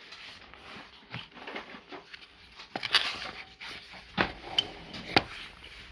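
Small cardboard product box handled and set down on a table: rustling and scraping with several light knocks, the clearest about halfway through and near the end.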